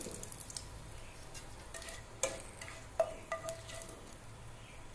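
Bay leaf frying in hot mustard oil in a non-stick kadai, a faint steady sizzle. A spatula clinks lightly against the pan about four times in the middle, each clink ringing briefly.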